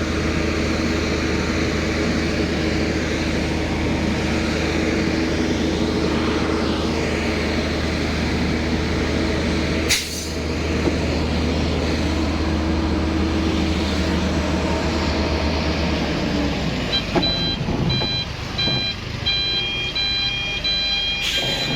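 A heavy vehicle's engine running with a steady low drone, a single sharp click about ten seconds in. The drone drops away, and from then on a reversing alarm sounds in short, repeated high beeps.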